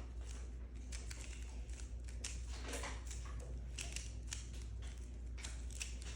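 Rubik's Cube being turned by hand: irregular small plastic clicks and clacks, several a second, over a steady low hum.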